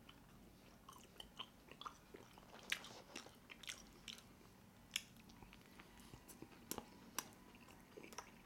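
Mouth sounds of a person chewing a mouthful of Big Mac: quiet, with scattered wet clicks and smacks, the sharpest about three, five and seven seconds in.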